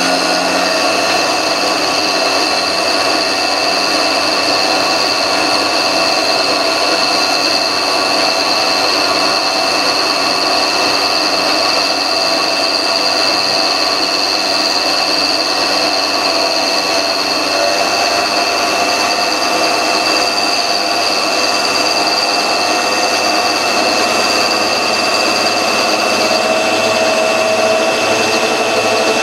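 Homemade tool post grinder running steadily with a high whine, its wheel grinding the 60-degree point of a lathe dead center in light passes while the mini lathe spins the center.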